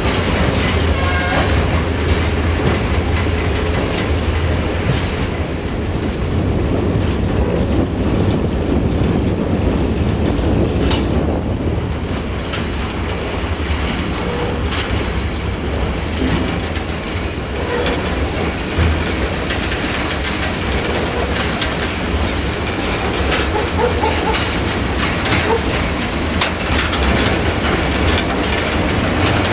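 Railway freight wagons rolling along the track: a steady rumble with wheels clattering over rail joints, and now and then a brief wheel squeal.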